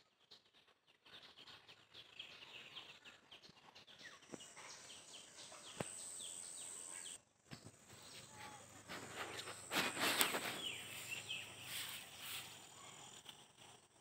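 Small birds chirping in short repeated calls over a steady high insect drone. The sound drops out briefly just past seven seconds in, and a louder noisy burst comes around ten seconds in.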